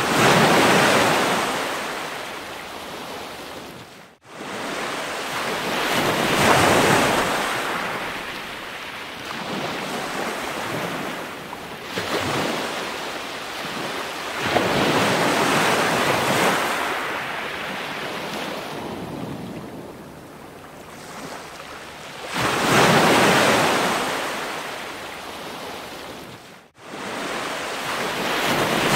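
Surf-like rushing noise that swells and ebbs in slow waves about every seven to eight seconds. It cuts out for an instant twice.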